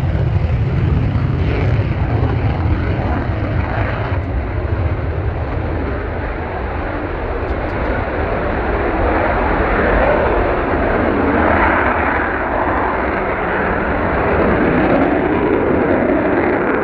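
Twin AL-31F afterburning turbofans of a Sukhoi Su-27 at takeoff power as it runs down the runway, lifts off and climbs away. A loud, continuous jet roar, heavy and low at first, that swells again about ten seconds in and once more near the end.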